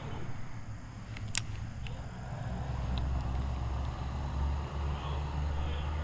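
A truck passing on a road: a low engine and tyre rumble that swells about halfway through. A single sharp click sounds about a second and a half in.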